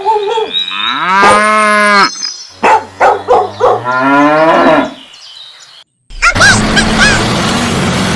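Animal calls: one long drawn-out call, then a string of shorter broken calls. Then a brief silence, and a steady noise sets in near the end.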